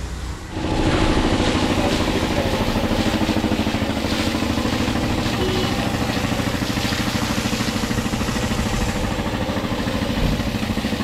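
Car-wash pressure washer switching on about half a second in and running steadily: a rapidly pulsing motor hum under a hiss of spray.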